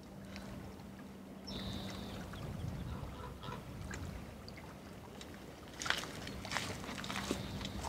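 Outdoor waterfront ambience: a steady low rumble of wind and water with a faint steady low hum underneath. A brief high-pitched note sounds about two seconds in, and a few sharp taps come in the second half.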